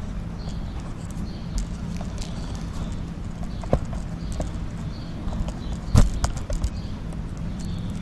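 Scattered knocks and clicks of hands and tools working on a car's rear wheel as it is taken off, with one louder knock about six seconds in, over a steady low hum.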